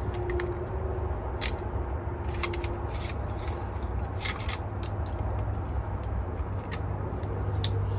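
Scattered metallic clicks and scrapes from a manual staple gun being handled and reloaded, over a steady low hum that grows a little near the end.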